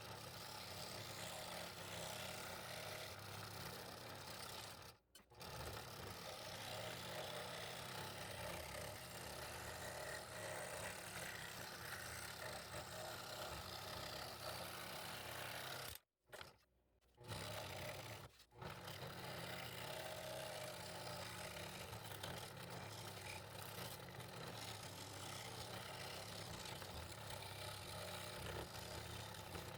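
Scroll saw running and cutting fretwork in wood, a steady buzz broken by sudden short gaps of silence about five seconds in and again around sixteen to eighteen seconds.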